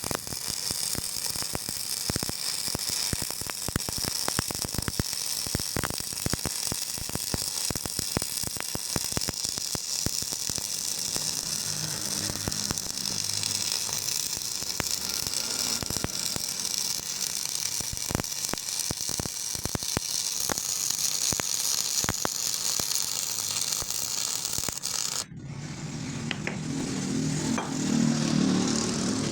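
Stick welding arc crackling steadily with dense sharp pops as the electrode burns. About 25 seconds in it cuts off suddenly and a low rumble takes over.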